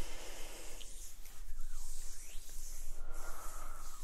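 A woman's soft, breathy whispering and breaths close to the microphones.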